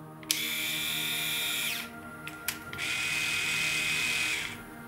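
Philips HQ8270 rotary electric shaver running on its freshly glued drive shaft: a steady motor hum with two louder whirring spells of about a second and a half each, the repaired shaft driving the cutters normally.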